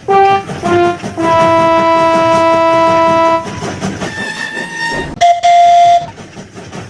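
Locomotive horn sounding two short blasts and then one long blast, followed by two more shorter blasts at different pitches, over the steady rumble of a train running on the rails.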